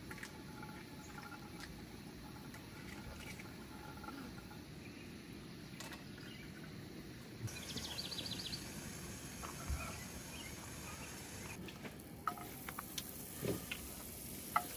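Quiet outdoor ambience with faint chirps and a light steady hiss, and a few soft knocks and clinks in the last few seconds.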